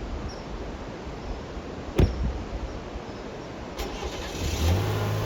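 Steady rushing river noise with a sharp click about two seconds in, then a vehicle engine starts near the end and settles into a steady idle.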